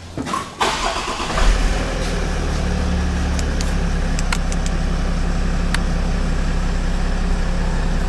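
2017 Land Rover Discovery's 3.0-litre turbocharged V6 engine being started: a brief crank, the engine catching with a jump in level about a second and a half in, then a steady idle, heard from inside the cabin. A few sharp clicks sound over the idle.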